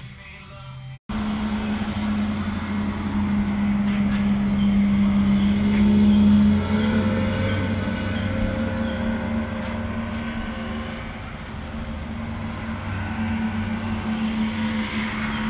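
Music cuts off about a second in. A motor vehicle follows, running with a steady low hum that swells for a few seconds, then eases off.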